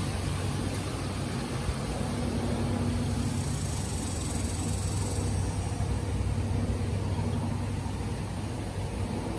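A steady low mechanical hum under a constant hiss, unchanging throughout.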